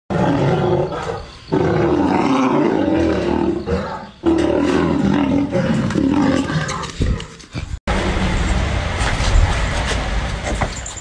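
A lion and a tiger fighting: loud, rough roaring and growling in three long bursts, each broken by a brief pause. The sound cuts off suddenly about eight seconds in, giving way to a lower, rumbling stretch.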